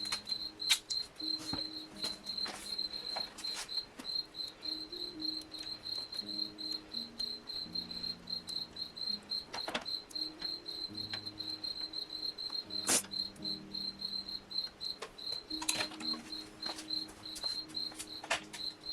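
Crickets chirping in a steady, fast, even trill, with a few sharp clicks scattered through.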